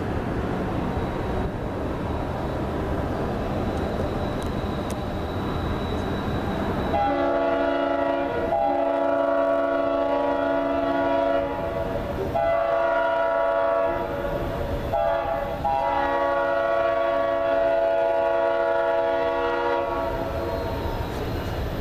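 Diesel locomotive air horn of an approaching Norfolk Southern freight sounding a multi-note chord in the grade-crossing pattern: long, long, short, long. A steady low rumble comes first, and the horn starts about seven seconds in.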